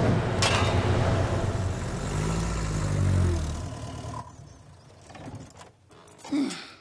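Engines of small farm vehicles running as they drive past along a lane, then fading away about four seconds in. Near the end comes a short vocal sound.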